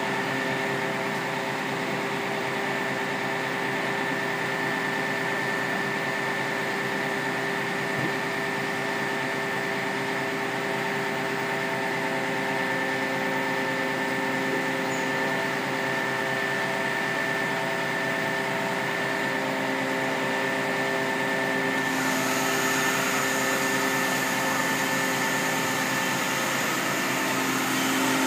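Hydraulic platform fire appliance running its boom: a steady mechanical hum and whine from the truck's engine and hydraulic drive while the boom and cage move. A brighter hiss joins about three-quarters of the way through, and the sound grows slightly louder near the end.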